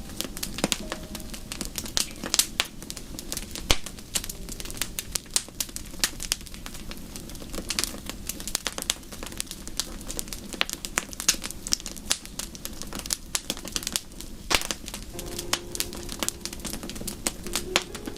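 Wood fire crackling in a fireplace: a dense, irregular run of sharp pops and snaps, a few of them louder than the rest.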